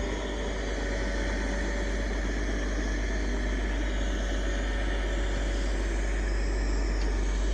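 Diesel engine of a self-loading logging truck running steadily at low idle, an even drone.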